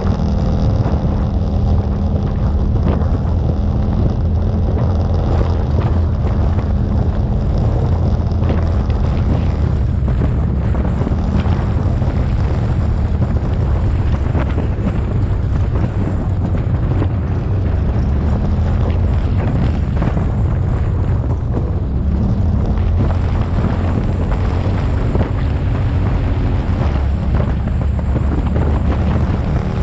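Off-road vehicle engine running at a steady trail speed, a low drone that shifts slightly in pitch about two-thirds of the way through. Tyres roll over the dirt track underneath it.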